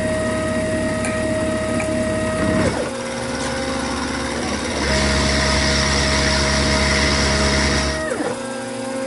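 Milling machine taking a bevel pass on a cast iron part with a 1/4-inch ball end mill: a steady machine whine whose pitch glides and changes at each change of move, about three times. From about five to eight seconds in it grows louder, with a hiss over a low hum.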